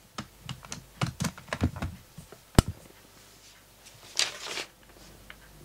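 A run of small clicks and knocks from handling a soldering station as it is plugged in and set up, with one sharp click about two and a half seconds in, then a short rustle.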